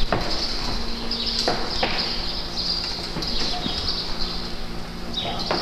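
Several dogs playing and moving about on artificial turf: scuffling with a few sharp knocks, over repeated high chirping and a steady low hum.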